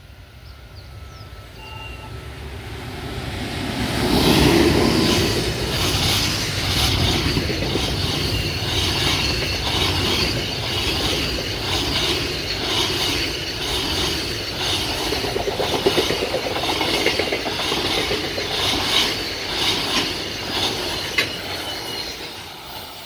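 JR Freight EF510 "Red Thunder" electric locomotive hauling a long container freight train, rising as it approaches and passing close by about four seconds in. The container wagons then roll past with a steady, rhythmic clatter of wheels over the rail joints, fading near the end as the last wagon goes by.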